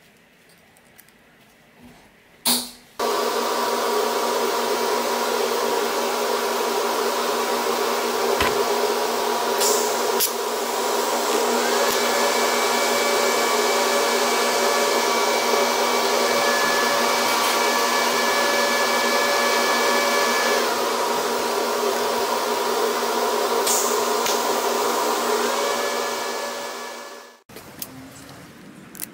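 TIG welding arc on stainless steel: a sharp crack as it starts, then a steady hissing buzz with a few steady whining tones for about 24 seconds, fading out over a second or so near the end.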